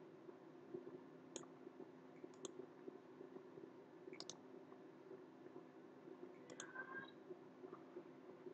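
Faint computer mouse clicks over a steady low hum: four clicks spread out, three of them quick double-clicks.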